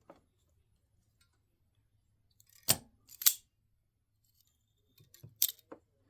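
Sharp clicks and snips from hand work on wiring: two loud ones about half a second apart near the middle, then a quicker cluster of smaller clicks near the end.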